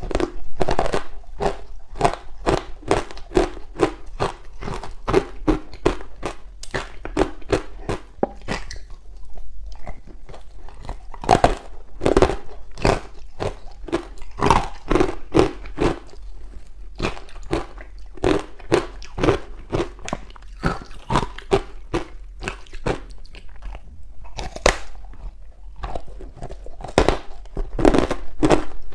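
Ice blocks coated in matcha powder being bitten and chewed close up: a steady run of crisp crunches, about three a second, with a few louder bites about midway and near the end.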